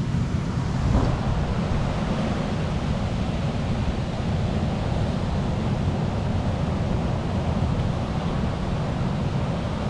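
Steady wash of surf breaking on a beach, with wind buffeting the microphone in a low, gusty rumble.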